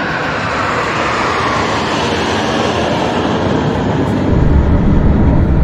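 Military aircraft flying past: a steady roar whose pitch falls slowly, with a deeper rumble growing stronger about four seconds in.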